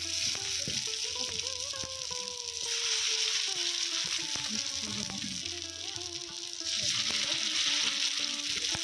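Food frying in hot oil in a pan: a steady sizzle that swells louder about three seconds in and again near the end.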